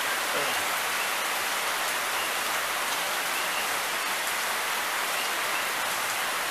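Steady rain falling, an even hiss, with a few faint short chirps now and then.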